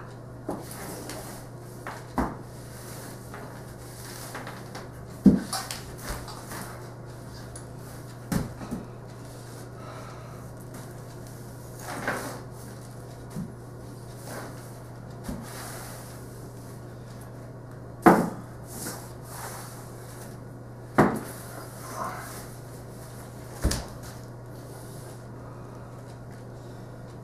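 Irregular wooden knocks and thumps on a hardwood floor, about ten in all, from a broom being worked through a pile of hay and a person hopping on one bare foot, with brushy sweeping scrapes between them. A steady low hum runs underneath.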